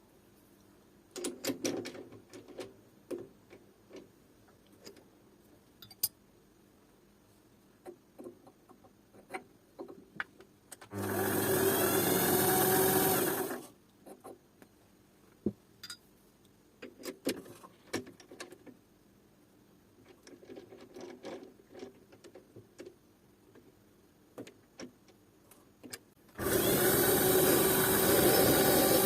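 Scattered clicks and taps of small parts and tools being handled. A small power tool runs for about three seconds, then starts again near the end.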